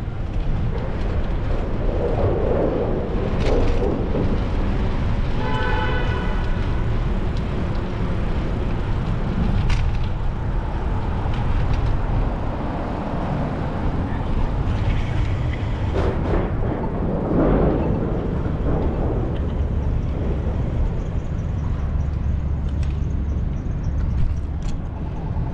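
City street noise heard from a moving bicycle: a steady low rumble of wind and traffic, with louder swells of passing sound. A short pitched tone comes about six seconds in, and a few sharp clicks are scattered through.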